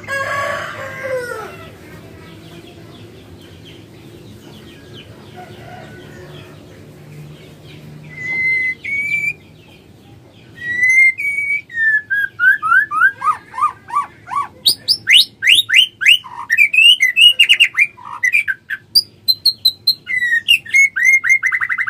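Female white-rumped shama (murai batu) singing. Clear whistled notes come first, then from about eleven seconds in a loud, varied run of descending whistles and fast trills. A brief call sounds at the very start, over a low steady hum.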